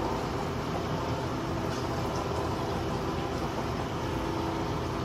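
Steady rushing noise with a faint hum, the running water filtration of a store's aquarium tanks.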